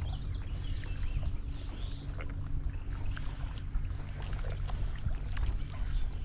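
A steady low motor hum, like a boat engine running, with a few short bird chirps over it.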